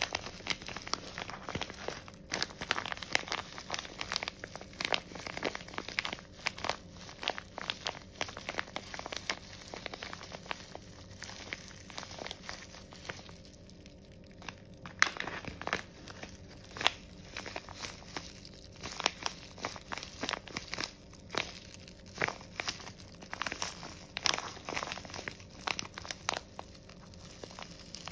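A clear plastic bag crinkles and crackles as a soft, fluffy waffle-shaped squishy toy is squeezed and kneaded inside it, in irregular bursts of squeezing with a short lull about halfway through.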